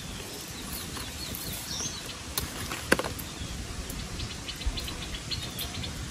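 Outdoor forest ambience: a steady hiss with a few sharp clicks, the loudest about three seconds in, a wavering high call in the first two seconds, and a quick run of short high chirps from about four seconds in.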